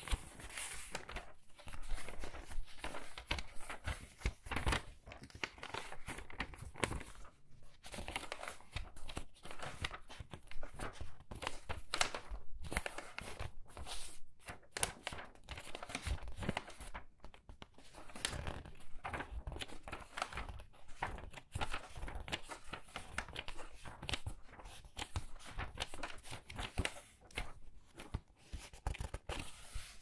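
Pages of a large hardback book turned quickly by hand, one after another: a continuous, uneven run of paper flips and rustles as each thin page is lifted and swung over.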